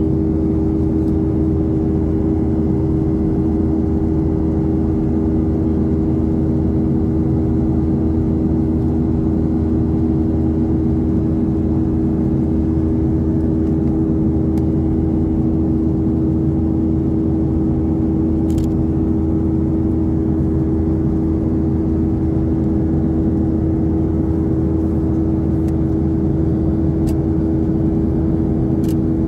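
Cabin noise inside a Boeing 737-800 in flight: the steady rush and hum of its CFM56-7B turbofan engines, with a few held droning tones and no change in level.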